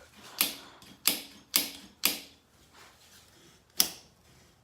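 Sharp mechanical clicks from handling an electric mountain bike: four at about half-second intervals, then a pause and one more near the end.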